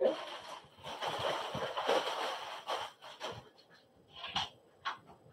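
Rustling and scraping of the bassinet's mattress and fabric as it is handled and settled into place: a continuous rustle for about three seconds, then a few shorter rustles and light taps.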